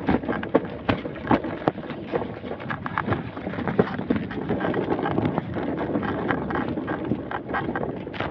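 Footsteps on a paved sidewalk at walking pace, about two steps a second, clearest in the first half, over a steady rush of wind on the microphone.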